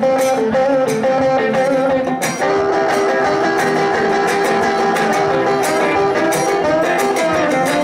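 Electric guitars playing an instrumental passage together: a lead line of held notes, some bent in pitch, over chords.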